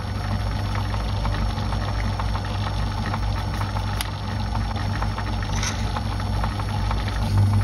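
Metal lathe running, spinning a brass bar while a reamer works into its bore to take it to 3/8 inch, a steady motor hum with a scatter of small ticks and rattles from the cut and the swarf. A sharper click comes about four seconds in, as a brush sweeps chips off the work.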